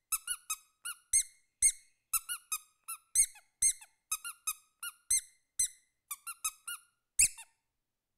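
Two squeezable rubber ducks played by hand as a percussion instrument: a rhythmic beat pattern of short squeaks at two different pitches, a few per second. The squeaks stop about a second before the end.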